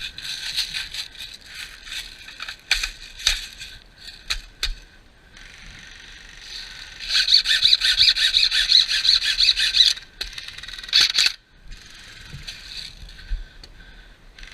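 Airsoft guns firing: scattered single shots and short bursts, then a long full-auto burst of rapid, even ticks from about seven to ten seconds in.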